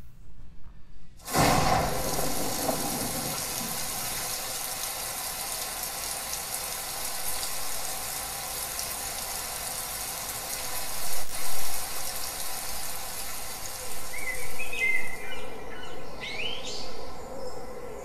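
Nature-sound test track played through the LG SC9 soundbar. A steady rush of water starts about a second in and swells briefly midway, and birds start chirping near the end.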